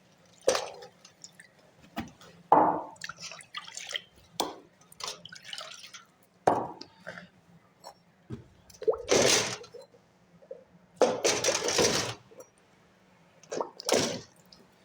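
Fireclay bricks being dunked into water to soak, giving a series of irregular splashes and drips; the longest splashes come a little past the middle.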